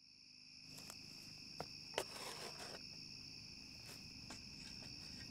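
Crickets chirping steadily, fading in at the start. Several sharp clicks are heard over them, the loudest a knock about two seconds in followed by a short rush of gritty noise.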